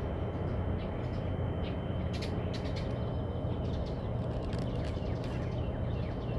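Small birds chirping in quick short notes, thickest in the middle of the stretch, over a steady low outdoor rumble and a thin steady high whine.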